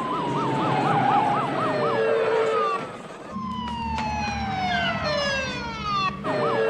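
Emergency-vehicle sirens: a fast warbling wail, then long falling wails with several descending tones overlapping. The same effect is repeated twice after abrupt cuts.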